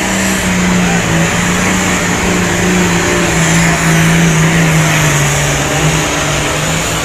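Diesel pulling truck's engine at full throttle under load during a pull, a loud steady drone with a high whistle over it; the pitch holds, then sags a little near the end as the truck bogs down the track.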